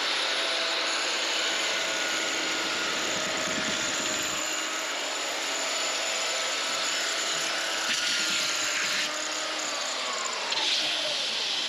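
Corded handheld circular saw running steadily as it cuts along an MDF guide rail. Its motor pitch falls near the end.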